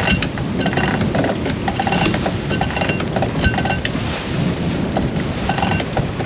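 Sailboat deck hardware, blocks and winch clicking and clinking over and over with short ringing metallic notes, over a steady rush of wind and water.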